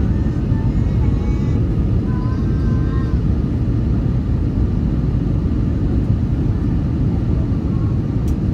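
Steady low rumble of an Airbus A321 jet airliner heard inside the cabin: engine and airflow noise with no change in level. Faint voices in the first few seconds and one brief click near the end.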